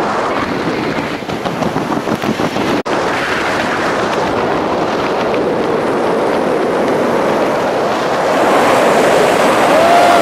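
Airflow buffeting a camera microphone during a tandem parachute descent under an open canopy: a steady rushing noise that flutters in the first few seconds, cuts out for an instant about three seconds in, and grows a little louder near the end.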